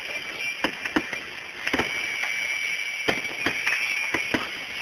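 Fireworks going off, recorded through a phone's microphone: about ten sharp bangs and pops at irregular intervals over a steady hiss. A high, steady whine runs through the middle for a couple of seconds.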